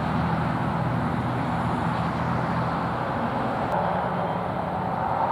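Steady road traffic noise, an even rumble with a low engine-like hum beneath it.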